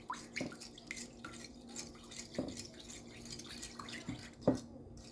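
A liquid egg-and-milk mixture being stirred in a bowl with a utensil: soft wet splashes and light, irregular clicks, with a louder tap a little before the end.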